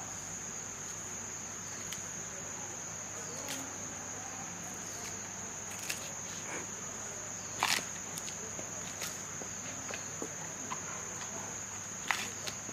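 A steady high-pitched insect drone, with scattered sharp crunches and cracks from a giant panda biting and chewing bamboo shoots. The loudest crunch comes a little past halfway, and another near the end.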